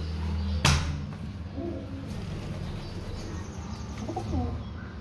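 A metal mesh safety door clacks sharply once, about half a second in. After it a bird coos softly twice, once a second or so later and once near the end.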